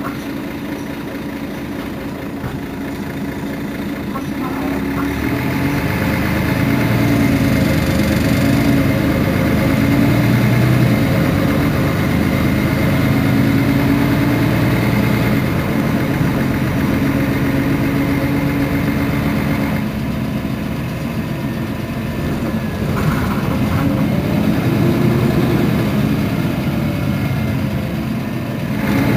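Engine of a Mercedes-Benz Citaro Facelift city bus, idling at first, then pulling away and running under load with its pitch shifting. It eases off about two-thirds of the way through, then picks up again.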